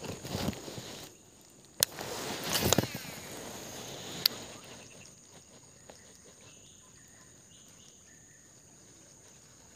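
Outdoor background with a steady high insect drone. Rustling and two sharp clicks come in the first half, and then it settles quieter from about halfway.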